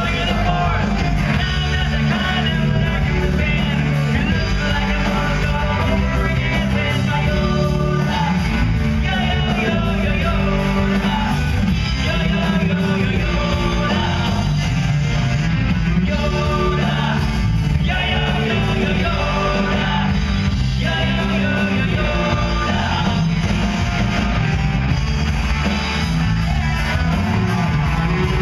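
Live rock band playing loudly with electric guitars, bass and drums, a lead singer singing over them, heard from the audience in a large hall.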